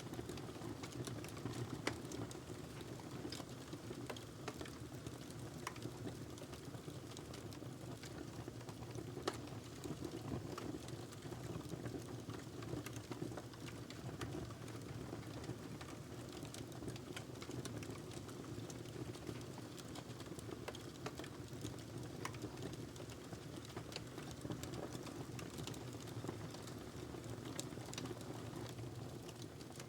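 Wood fire burning in a fireplace: a steady low rumble of the flames with frequent small irregular crackles and pops from the burning wood.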